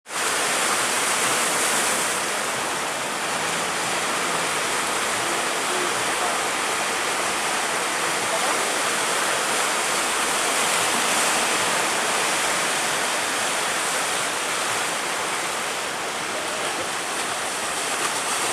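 Steady rushing of sea water and wind around a ship at sea in heavy waves, with no breaks or distinct strikes.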